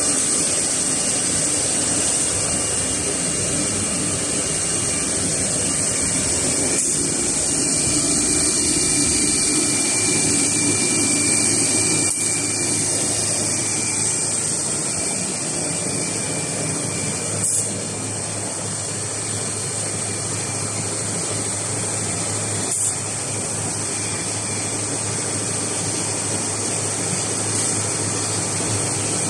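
CNC router running as it machines MDF: a steady high-pitched spindle whine over cutting noise, with a brief click every five seconds or so. A low hum comes in about a third of the way through.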